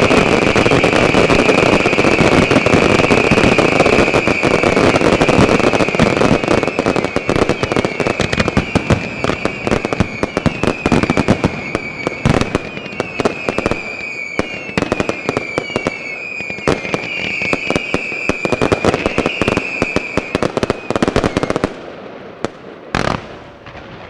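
Dense barrage of aerial firework bursts and crackle, the finale of a display, with high whistles running over it. It thins out about ten seconds in and stops about three seconds before the end, and one last bang follows.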